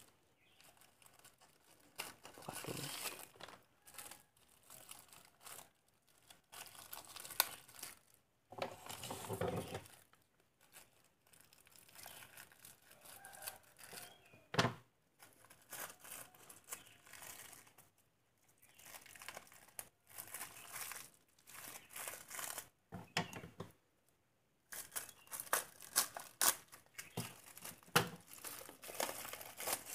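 Thin plastic bag crinkling and tearing as it is handled and cut open to free a phone casing. The rustling comes in irregular spells with short pauses between them.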